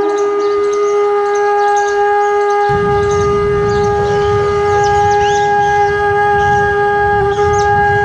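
Background music: a wind instrument holds one long, steady note, with faint bird chirps high above it. A low rumble comes in about three seconds in.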